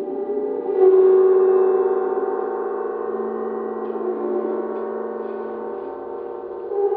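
Large flat hanging gong played with a small green-headed mallet, making spooky sustained tones: a swell of many wavering overtones about a second in that slowly dies away, and another swell near the end.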